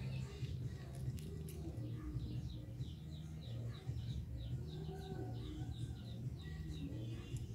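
Mother cat purring steadily while her ten-day-old kittens nurse and are groomed against her. Small birds chirp in short repeated runs in the background, mostly in the middle and near the end.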